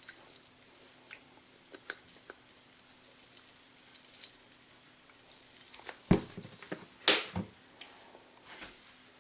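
Crisp fried rice vermicelli crackling and clicking as it is handled and served, with two louder knocks about six and seven seconds in.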